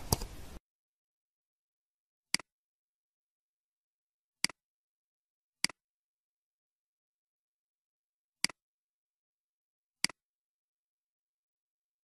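Computer mouse clicks: five single clicks spaced one to three seconds apart against silence, each a quick press-and-release double tick. Within the first second, a short hissy sound with a click cuts off.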